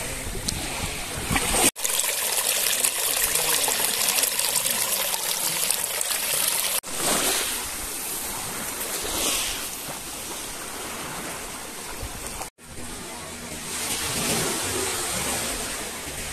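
Water splashing and trickling, an even rushing hiss. It is broken by three abrupt cuts, about 2, 7 and 12 seconds in.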